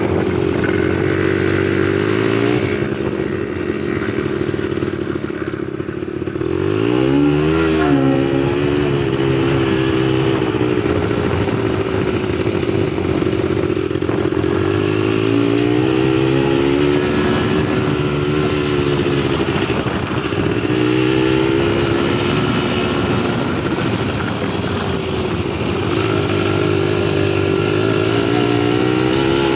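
ATV engine running while riding, its pitch rising and falling several times as the thumb throttle is worked. The sharpest rev up and back comes about seven seconds in.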